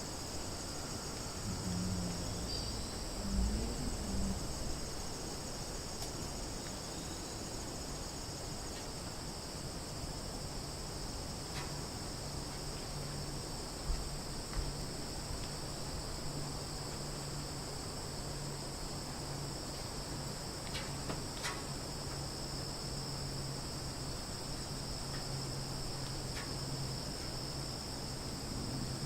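Summer forest ambience made of a steady chorus of insects shrilling in two high, unbroken bands. A low hum joins in about a third of the way through, and a few faint short chirps and clicks come and go.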